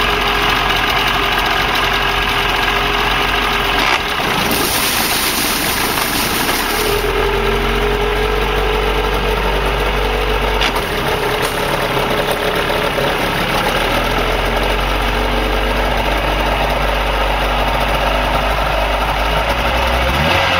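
40 hp Mercury two-stroke outboard motor running steadily at idle just after starting, its lower unit in a barrel of water, the engine note shifting slightly a few times.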